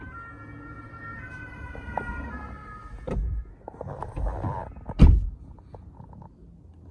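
Two-tone siren wailing, its pitch stepping up and down over the first couple of seconds, then two heavy thumps about three and five seconds in.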